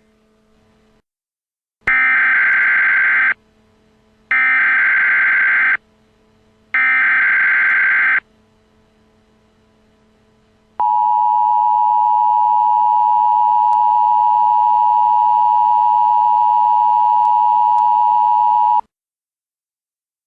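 Emergency Alert System tones: three short bursts of the SAME digital header, each a buzzing warble about a second and a half long, followed by the two-tone attention signal held steady for about eight seconds before cutting off. This marks the start of a new emergency alert broadcast.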